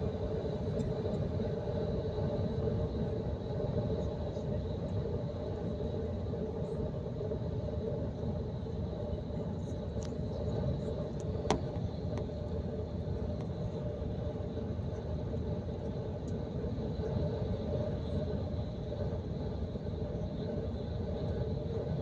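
Steady road and engine noise inside a vehicle cruising on a motorway: a low rumble with a steady hum. There is one sharp tap about halfway through.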